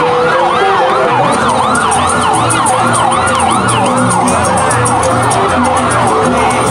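Emergency vehicle siren wailing in a fast yelp, its pitch sweeping up and down about four times a second without a break.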